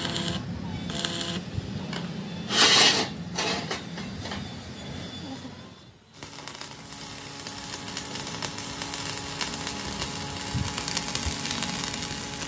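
Stick (shielded metal arc) welding on a rolled steel rim band: the arc's crackling sizzle. It comes in uneven spurts with a louder burst about two and a half seconds in, breaks off briefly about halfway, then settles into a steady crackle.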